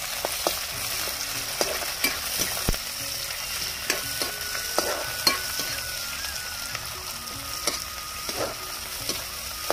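Sliced onions sizzling in hot oil in a kadhai, stirred with a steel ladle whose scrapes and knocks against the pan come irregularly over the steady sizzle.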